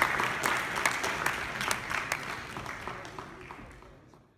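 Audience applauding, a dense patter of many hands clapping that fades steadily away to silence near the end.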